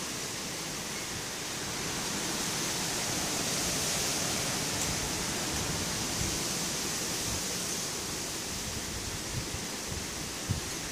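Steady outdoor hiss with no clear source, a few soft knocks near the end.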